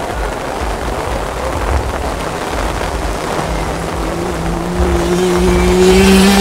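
Wind buffeting the microphone throughout. From about three seconds in, a Simson 60cc two-stroke race moped approaches, its engine note rising in pitch and getting louder toward the end.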